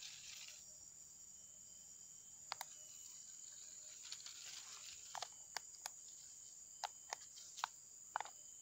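Faint steady high-pitched insect chirring, broken by about ten short, sharp crackles of dry leaves and twigs.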